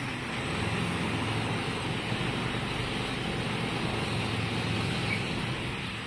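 Masses of farmed fish splashing and churning the pond surface in a feeding frenzy as feed is thrown in, a steady dense splashing. A low steady hum runs underneath.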